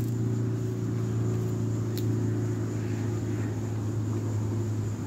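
A steady low motor hum, even in pitch and level, with one faint short click about two seconds in.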